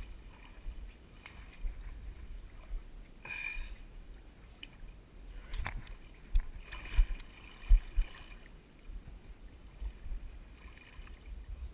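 Shallow water sloshing and lapping as people wade through it, with a low rumble and a few dull bumps around the middle.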